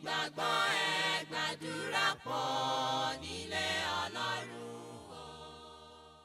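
Closing music: a choir singing, ending on one held chord that fades away over the last couple of seconds.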